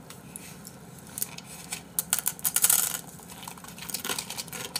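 Dry, uncooked instant ramen noodles being broken up and crunched while eaten: a run of sharp, crisp crackles and snaps, densest about halfway through.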